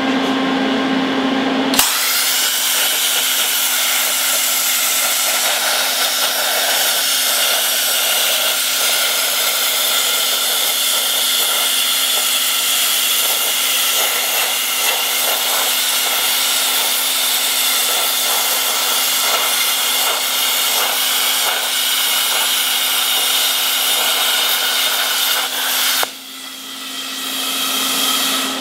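Handheld plasma cutter cutting through a steel tube: a loud, steady hiss and crackle of the arc over a steady hum. The cut starts about two seconds in, stops about 26 seconds in leaving a softer rush of air, and starts again at the very end.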